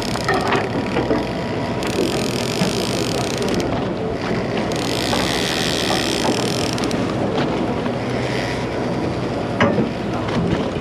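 Wind on the microphone over the steady drone of a party boat's engine, with the hiss swelling and dropping and a few faint knocks.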